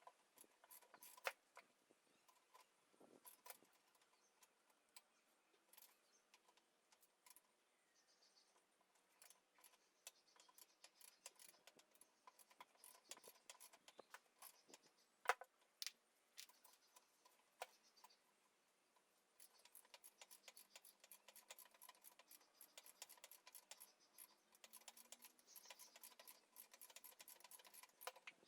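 Faint, irregular light clicks and taps, with a few sharper knocks about a second in and around the middle.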